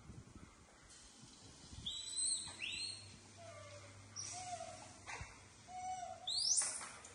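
Young macaques making high-pitched squeaking calls that sweep up and down, the loudest near the end, mixed with a few shorter, lower coos. A single sharp tap about five seconds in.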